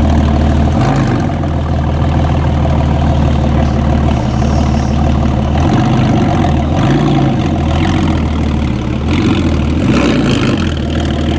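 Yamaha R1's inline-four engine idling and pulling along at low revs, a steady low note that lifts slightly a couple of times.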